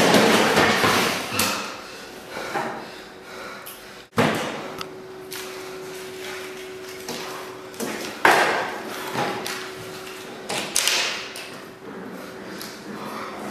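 Knocks and light clatters of small objects handled on a wooden desk, mixed with rustling. The loudest knocks come at the start, about 8 seconds in and around 11 seconds, with a faint steady hum in the middle stretch.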